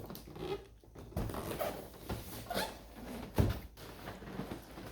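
Cardboard toy box and its packaging being opened and handled: irregular scraping and rustling with a few short knocks, the loudest about three and a half seconds in.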